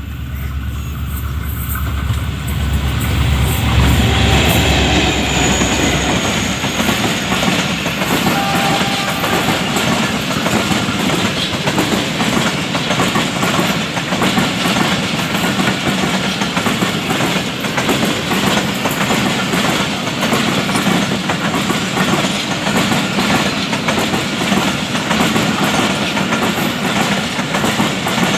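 HGMU-30R diesel locomotive passing, its deep engine sound loudest about four seconds in, followed by the coaches of an express passenger train rolling past with steady clickety-clack of wheels on the rails.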